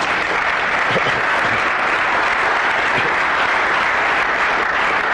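Audience applauding steadily: many people clapping at once in a large room.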